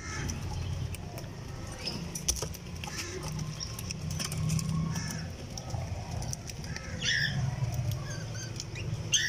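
Domestic pigeons cooing low in drawn-out stretches, with scattered clicks and rustles from the birds moving in the nest. A brief higher call comes about seven seconds in.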